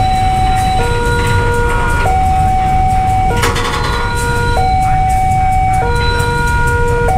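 Railway level-crossing warning alarm sounding its two alternating tones, swapping about every one and a quarter seconds, over the low rumble of a freight train of flat wagons passing the crossing. A brief clatter comes about three and a half seconds in.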